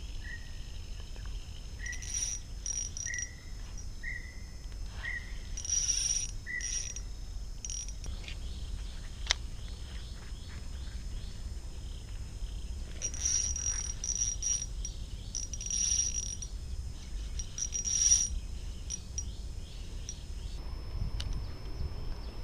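Riverside ambience: a bird repeats a short, slightly falling call about once a second for the first seven seconds, while insects chirp high-pitched in bursts over a steady low rumble.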